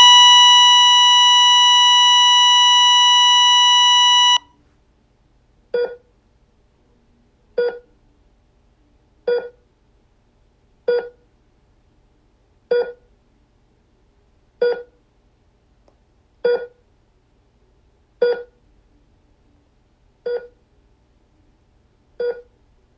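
Electronic beep tones: a loud, steady beep held for about four seconds, then short beeps repeating about every two seconds.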